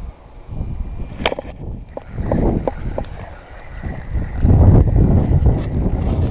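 Wind rumbling on an action camera's microphone, with handling noise as a sleeve rubs over the camera, loudest near the end. A few sharp clicks come about a second in and again around two and a half seconds in.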